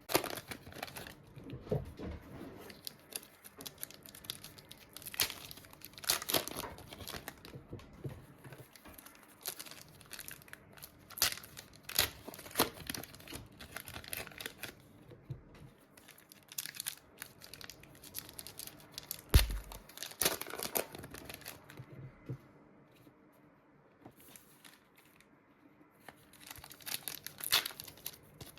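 Panini trading-card packets being torn open one after another, with the wrappers crinkling and tearing in quick irregular rips. A single low thump comes about two-thirds of the way through.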